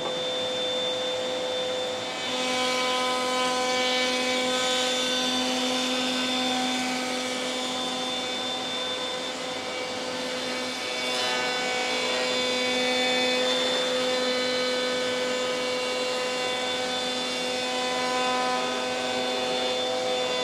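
Router in a Trend router table running steadily while a hardwood strip is fed past a 60-degree chamfer bit: a steady machine whine made of several fixed tones over a hiss. A lower tone joins about two seconds in and holds to the end.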